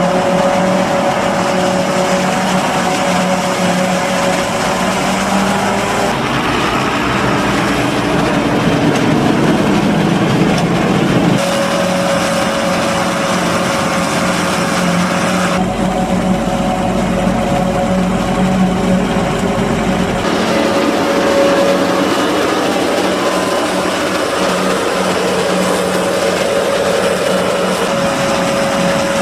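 Fox Max II forage harvester chopping maize under load, together with the Ford tractor pulling the forage wagon alongside: a loud, steady machine drone with a persistent hum. The mix shifts abruptly several times.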